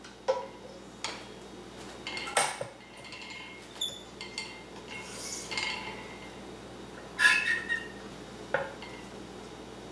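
Scattered metallic clicks and clinks from the clamps and tensioner of a Klippermate M140 drop-weight stringing machine being worked as a badminton racket is strung, about six in all, the loudest about seven seconds in.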